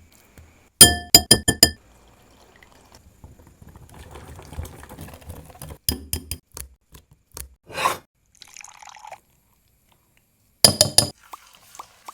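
Kitchen clinking: a quick run of about six sharp, ringing clinks about a second in and another cluster near the end, with softer taps and rustling in between.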